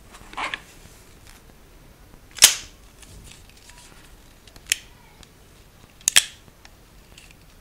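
Stainless Smith & Wesson Model 625 .45 ACP revolver's action being worked by hand: sharp metal clicks of the hammer and cylinder. A softer handling rattle comes near the start, the loudest click about two and a half seconds in, another near five seconds, and a quick double click just after six seconds.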